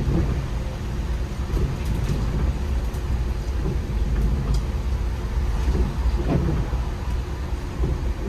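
MAN Lion's City articulated city bus on the move, heard from inside: a steady low rumble of engine and road noise, with a few faint clicks and rattles.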